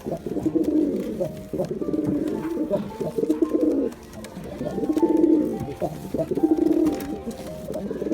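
Domestic pigeons cooing in two long bouts of low, warbling coos, with a short lull about four seconds in.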